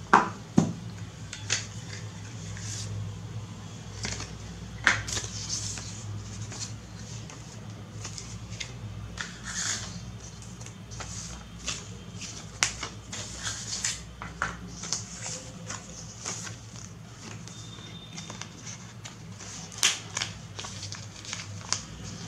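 Paper and thin card packaging inserts of an iPhone box being handled: irregular rustling with short sharp taps and clicks, the loudest just after the start, over a steady low hum.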